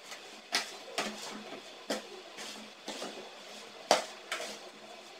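A metal spoon stirring chopped mango pickle in a plastic basin: a handful of irregular knocks and scrapes of the spoon against the basin, the loudest about four seconds in.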